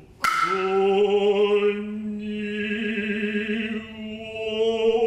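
A single stroke on the kotsuzumi shoulder drum, then the drummer's long drawn-out kakegoe call: one held vocal note with a slight waver, sustained for about five seconds. This is the sparse drum-and-call pattern of the ranbyoshi dance, played by the kotsuzumi alone.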